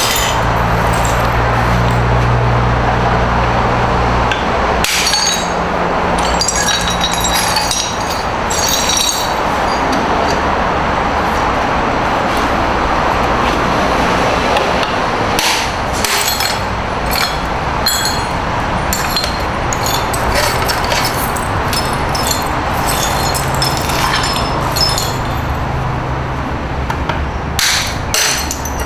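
Hammer tapping and chipping at a porcelain sink, with scattered sharp knocks and porcelain shards clinking and breaking off, over a steady background noise.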